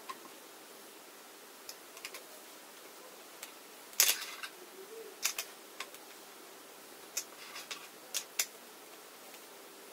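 Scattered light clicks and knocks of a black plastic mop hinge mechanism being handled and screwed by hand onto a metal furniture flange on a chipboard tabletop, the loudest cluster about four seconds in.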